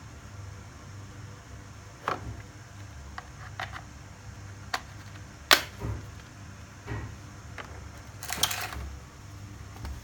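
Handling noise from a cordless drill kit: scattered clicks and knocks, with one sharp click about halfway and a short scraping rustle near the end.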